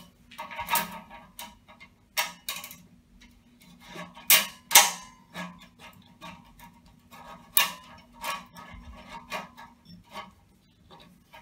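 Metal spiral retaining shim spring being worked by hand into the groove of an FRP pressure vessel's end: a string of irregular metallic clicks, clinks and scrapes, with a few sharper clinks about two, four and seven seconds in.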